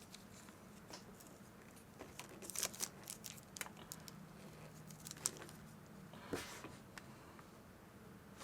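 Faint handling noises: scattered light clicks and rustles of the small plastic entry sensor and its magnet being moved about, with a sharper click a little after five seconds and another about a second later.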